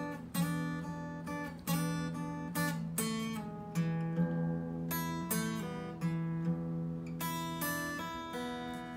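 Acoustic guitar played fingerstyle: a delta-blues intro in E, with a steady repeated bass note under higher notes picked on the top strings, each note ringing on. The playing softens toward the end.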